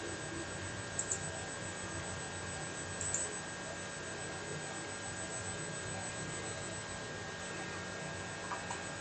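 Steady background hiss and hum with a faint high steady whine, broken by a few faint short clicks.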